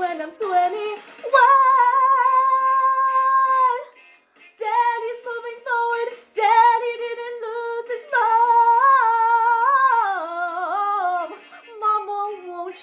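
A woman singing, holding two long steady notes, then a run of notes that steps down in pitch near the end.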